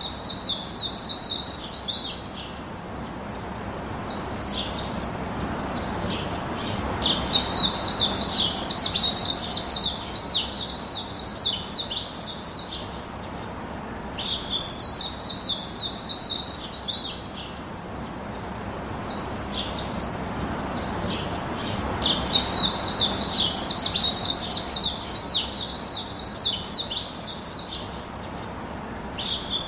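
Songbirds singing in bouts of rapid, high chirping phrases, each a few seconds long and recurring every few seconds, over steady background noise.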